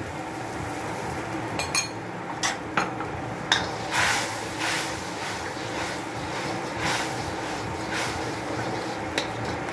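Metal ladle stirring thickening gravy in a wok: scattered scrapes and clinks of metal on the pan, irregular and a few seconds apart, over a steady hiss.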